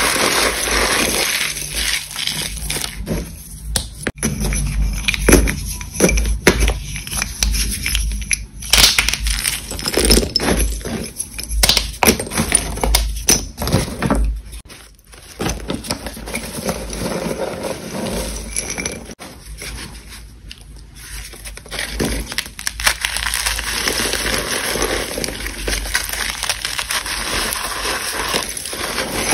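Hands crushing and crumbling reformed chalk blocks and school chalk sticks: irregular dry crunching and crackling, dropping away briefly about halfway through.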